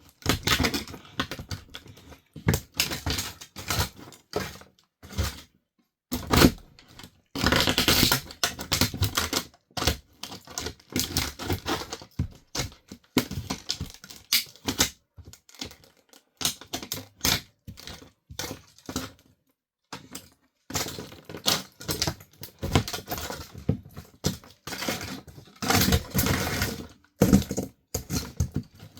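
Plastic parts of an RC toy car crunching, cracking and snapping under high-heeled shoes, in irregular bursts of sharp clicks with short pauses between them.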